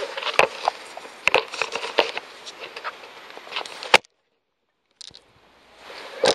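Handling noise of a handheld camera being carried and fitted onto a tripod: rustling and scuffing with several sharp clicks and knocks. The sound drops out completely for about a second past the middle, then comes back with a loud knock near the end.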